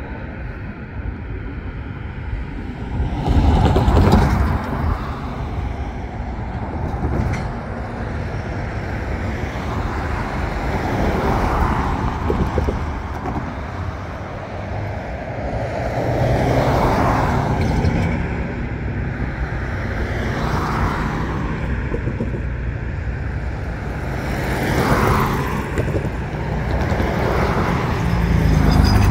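Road traffic: cars passing one after another, their tyre and engine noise swelling and fading every few seconds, loudest about four seconds in.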